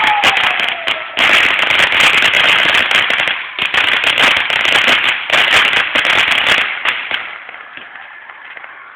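Fireworks and firecrackers crackling in dense, rapid volleys of pops with brief breaks, dying down to a faint hiss about seven seconds in. A falling whistle fades out in the first second.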